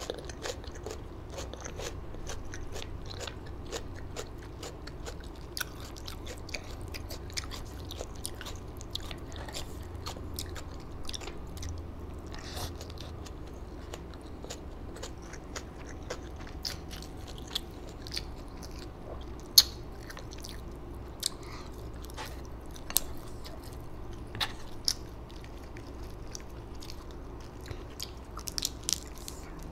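A person eating deep-fried chicken close to the microphone: chewing, with crisp crunching bites and many small sharp clicks at irregular intervals, over a low steady hum. One louder crunch comes about two-thirds of the way in, and a quick run of them near the end.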